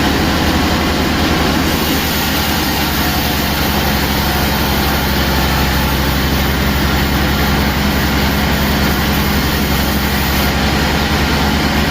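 Sawmill machinery running steadily, a loud, unbroken low drone like a heavy engine.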